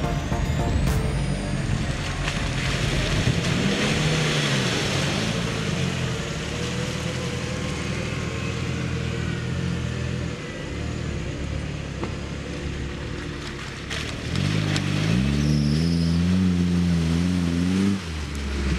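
Off-road 4x4 engines revving while driving through mud: a Suzuki Jimny's engine rises and falls in revs twice early on. About fifteen seconds in, a Daihatsu Feroza's engine climbs in revs and holds loud as it passes close.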